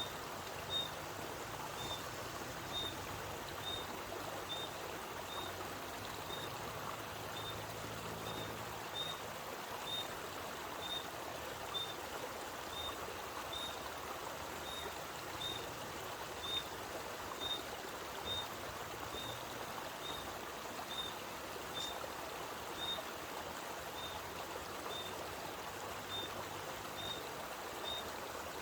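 Spring water flowing steadily out of a mountainside, with a bird repeating one short, high note about twice a second.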